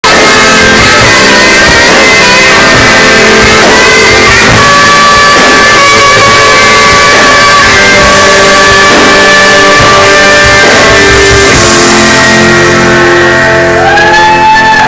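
A live rock band playing very loud, with electric guitar.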